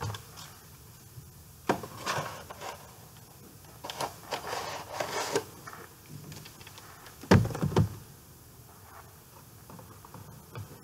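A VHS cassette and its plastic case and cardboard sleeve being handled: scattered clicks and rubbing, with a louder double knock about seven seconds in.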